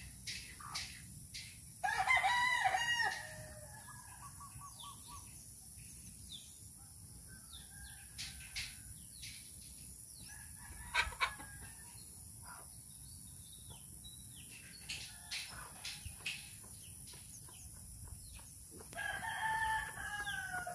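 Roosters crowing: a loud crow about two seconds in and another near the end, with scattered short clucks and calls between.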